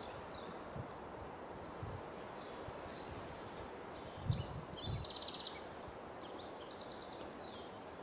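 A songbird singing a string of short, high, quick phrases with rapid trills, loudest about halfway through, over a steady background hiss. A couple of low thumps come about four and five seconds in.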